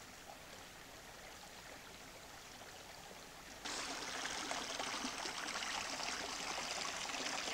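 Forest stream rushing over stones, a steady watery hiss. It is faint at first and becomes much louder and brighter suddenly about halfway through, at a cut.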